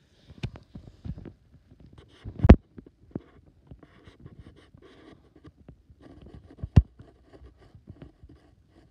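Irregular knocks and rubbing from a hand-held phone being handled at close range while a hand strokes a cat's fur, with two sharp knocks, one about two and a half seconds in and one near seven seconds.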